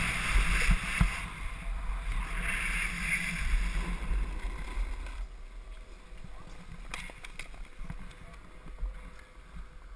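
Wind rushing over a helmet camera's microphone and a snowboard sliding on packed snow. The noise fades after about five seconds, with a few faint clicks near the end.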